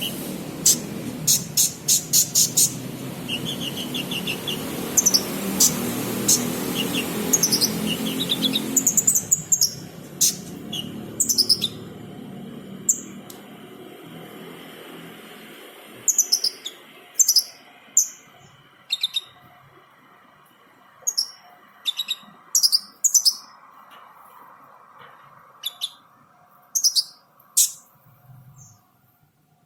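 Sunbird ('kolibri') calling: short, sharp, high chirps, some falling in pitch, at irregular intervals, with a quick run of chirps in the first few seconds. A steady hiss lies under the calls until it stops about nine seconds in.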